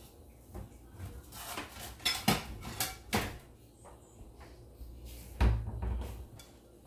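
A plate being fetched from a kitchen cupboard: cupboard door and plates knocking, with a few sharp clacks around the middle and one heavier thump later on.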